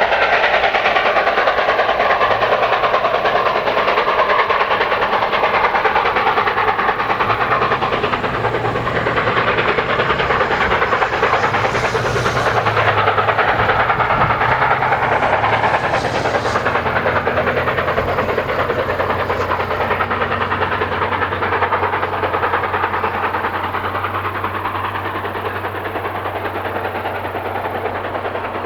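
A train hauled by Canadian Pacific steam locomotive 2816 running on the rails, a steady rolling noise that eases off slightly near the end.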